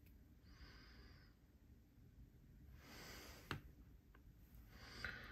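Near silence with soft breaths and faint handling of small tools. One sharp click comes about three and a half seconds in and a fainter one just after.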